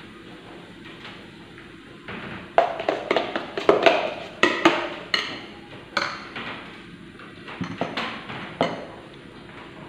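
Kitchenware clattering off-camera: a run of sharp knocks and clinks, a few ringing briefly, starting a couple of seconds in and stopping near the end.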